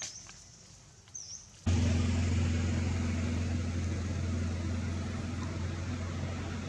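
A steady low motor hum starts abruptly about a second and a half in and runs on evenly. Before it there are quiet forest sounds with two short high chirps.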